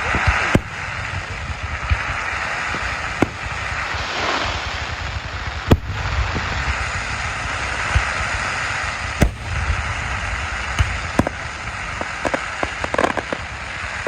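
Fireworks display going off: about six sharp bangs a few seconds apart, with smaller cracks near the end, over a steady noisy background.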